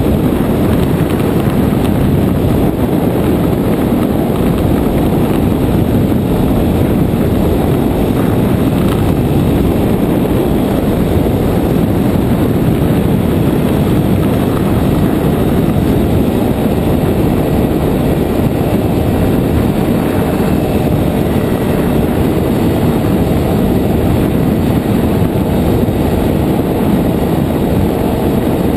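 A nano trike's JPX 320 engine and pusher propeller running steadily in flight, at cruising power.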